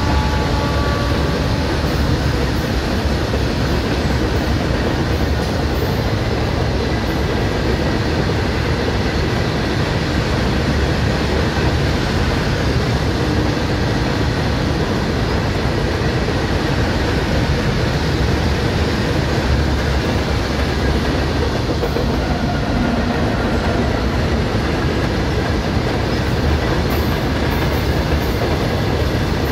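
Freight train of open-top steel wagons rolling past close by: a loud, steady noise of steel wheels running on the rails.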